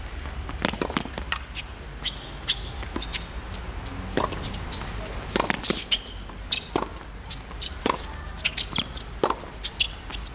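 Tennis balls bouncing and being struck on hard courts: irregular sharp knocks scattered through, some with brief high squeaks in between.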